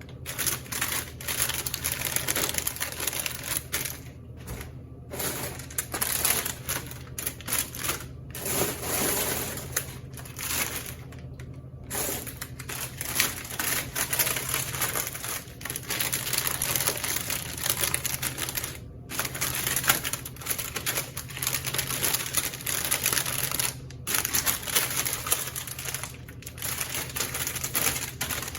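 Plastic packaging and bags crinkling and rustling as packs of product are handled, in uneven runs broken by short pauses, over a steady low hum.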